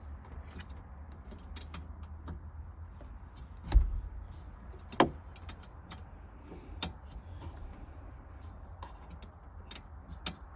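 Scattered clicks and knocks of metal parts and tools being handled while fitting a harness support bar in a Jeep, the loudest a thump about four seconds in and a sharp click a second later, over a low steady hum.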